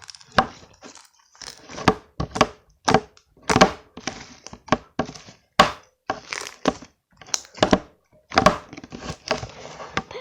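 Slime being squeezed and worked by hand, giving an irregular run of sharp wet pops and crackles.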